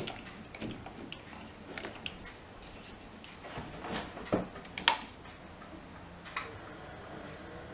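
Scattered sharp clicks and knocks as the repaired GE side-by-side fridge is switched back on, with a faint steady hum coming in near the end as it starts running.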